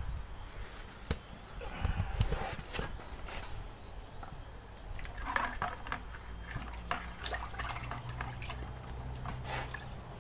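Hand wet-sanding of a car's clear coat with 2000-grit sandpaper to flatten paint runs: watery scuffing with scattered light clicks. A low steady hum sets in near the end.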